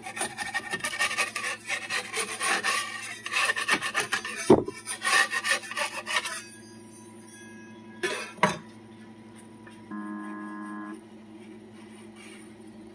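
A metal putty-knife scraper scrapes and rasps across a 3D printer's PCB heated bed, prying loose a failed red plastic print that did not adhere, with a knock partway through. After the scraping stops there is another short knock, then a buzz of about a second.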